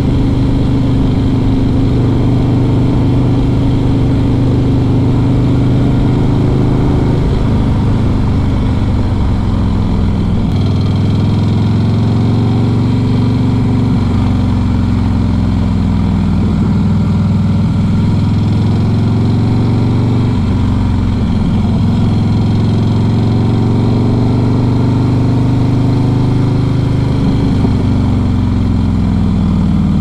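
Harley-Davidson Fat Boy S V-twin running through a modified header and stock exhaust. The engine speed changes several times, with slow falls in pitch and rises back up.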